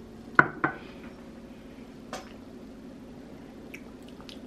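Two quick light knocks in the first second, then a few faint clicks, as a glass syrup bottle and a metal spoon are handled on a granite counter. A steady low hum runs underneath.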